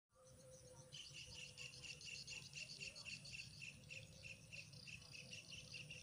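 Faint insect chirping in grass at dusk: a rapid, regular series of short high chirps, about four a second, that begins about a second in, over a faint low background rumble.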